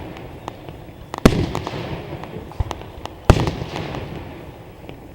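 Aerial firework shells bursting overhead: two loud booms about two seconds apart, each followed by a rolling echo and smaller crackling pops.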